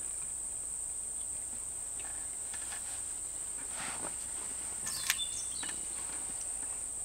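Steady high-pitched chorus of insects trilling, with a few short bird chirps and a single sharp click about five seconds in.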